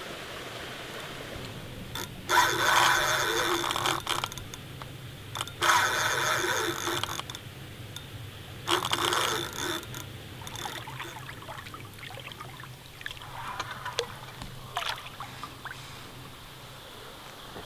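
Fishing reel's drag buzzing as a hooked Wels catfish pulls line off the spool: three sudden rattling runs of one to two seconds each, then only faint ticks.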